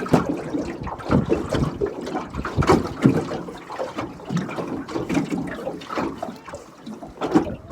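Water splashing and sloshing around a small aluminium boat, with irregular short splashes and knocks.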